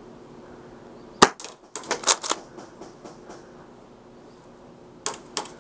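Airsoft guns firing: one sharp crack about a second in, a quick run of snapping shots a moment later, and two more shots near the end.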